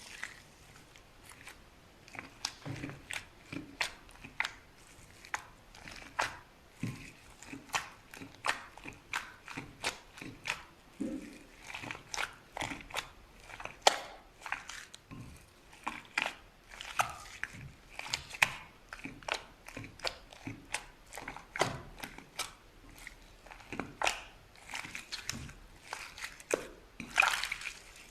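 Slime being squeezed and worked by hand, a dense, irregular run of small wet clicks and pops, several a second, with a louder crackly burst near the end.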